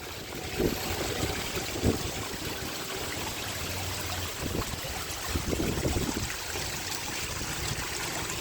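Koi pond waterfall: water running and splashing steadily, with a few short low thumps.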